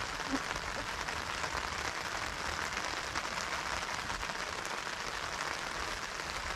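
Steady rain falling on a plastic tarp canopy overhead, a dense, even patter of drops.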